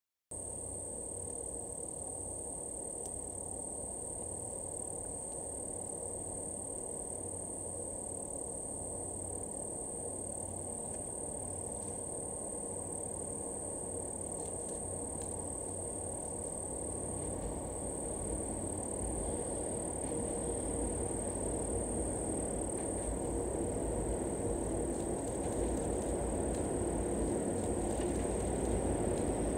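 A steady, high insect trill over a low, even noise that slowly grows louder: the JNR Class DE10 diesel-hydraulic locomotive and its coaches drawing nearer from a distance.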